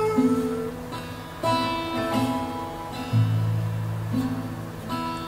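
Acoustic guitar played slowly, a new chord picked or strummed about once a second, five in all. At the start a sung note is held for under a second before the guitar carries on alone.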